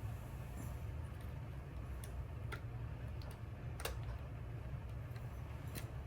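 A handful of faint, sharp clicks as a pry tool works a cracked iPhone 16 screen loose from the phone's frame, over a steady low hum.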